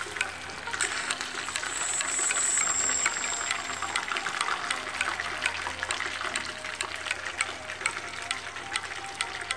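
Marinated chicken pieces deep-frying in hot oil in a small pan: a steady sizzle dotted with many small pops and crackles. The sizzle swells louder briefly about two seconds in.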